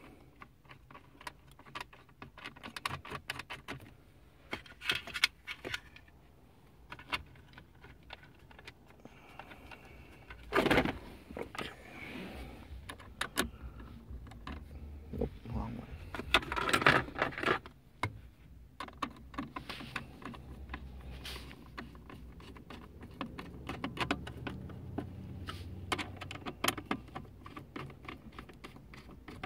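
Bolts being handled and screwed back into a car's plastic center-console trim: scattered small metallic clicks and rattles, with two louder clattering spells, one about a third of the way in and one just past halfway, over a low steady hum.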